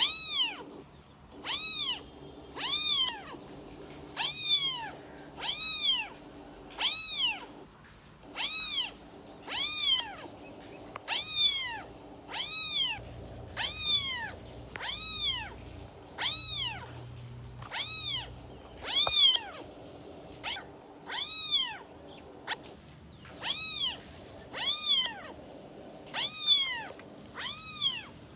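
A kitten meowing again and again, about two dozen high meows a little over a second apart, each rising and then falling in pitch.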